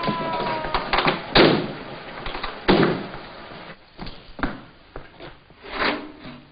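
A police siren winding down and dying out, then car doors slamming shut, the loudest about two and a half seconds in, followed by a few lighter knocks.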